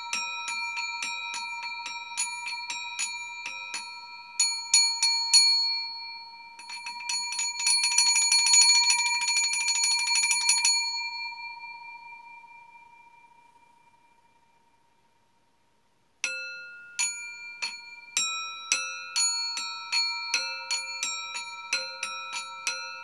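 Stainless steel bowl used as a singing bowl, struck repeatedly so it rings with several steady overlapping tones. Around a third of the way in it is rattled with fast strikes that swell louder, then the ring fades away to silence, and the tapping starts again about two-thirds of the way in.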